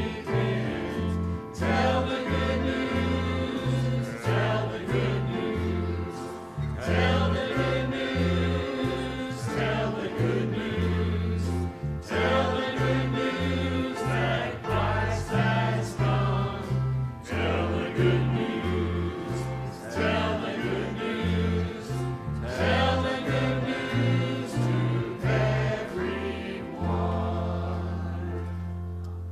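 Church choir singing a gospel song over instrumental accompaniment with a moving bass line, ending on a long held final chord near the end.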